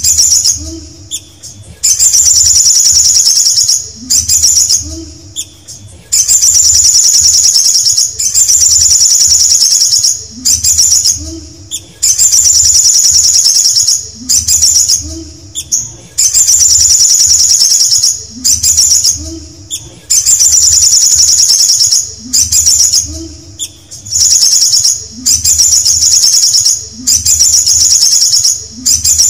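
Male olive-backed sunbird singing: loud, high, fast trilled phrases, each about one and a half seconds long, repeated about every two seconds.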